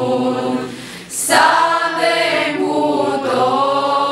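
A group of young voices, mostly female, singing a Romanian colind (Christmas carol) together, unaccompanied. A short breath pause about a second in, then the next line begins.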